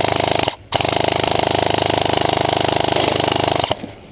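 Airsoft gun firing on full auto: a short burst that stops about half a second in, then a longer burst of about three seconds with a rapid, even rate of fire.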